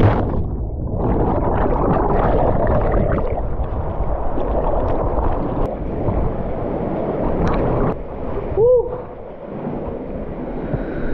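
Wind buffeting the microphone over rushing water or surf, a loud, steady noise. About two-thirds of the way through, a single short tone rises and falls, then the noise drops briefly.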